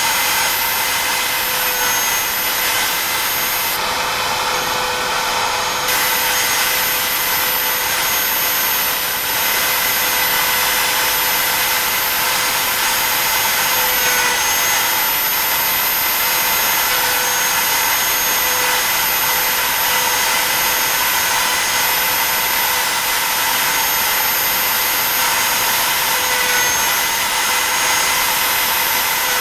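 BobsCNC E3 desktop CNC router's spindle motor whining steadily as a V-bit carves stars into wood, with a steady hiss of cutting. The whine dips slightly in pitch every so often as the bit takes load in the cut.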